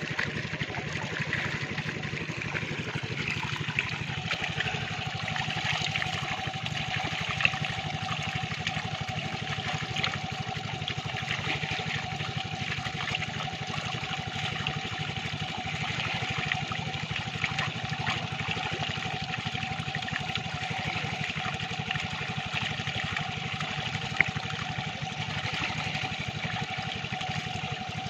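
Muddy water running steadily through a gap in a mud dam and pouring into a woven bamboo basket fish trap, with small splashes from the fish carried in the flow. A faint steady hum runs underneath.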